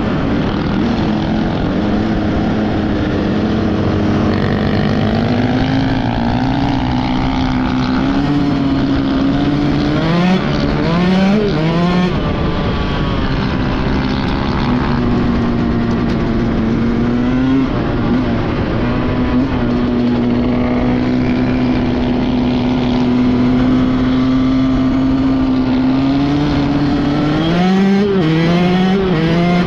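Dirt bike engine running at a steady speed over a wind-buffeted rush. It revs up through the gears in a run of rising sweeps about ten seconds in and again near the end.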